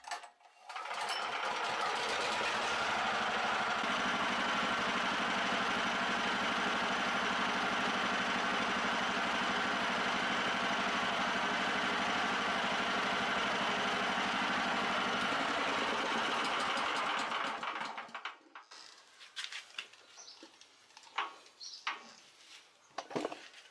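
Small petrol engine of a homemade garden tractor starting and running steadily, then shut off about 18 seconds in, followed by a few light knocks and clicks.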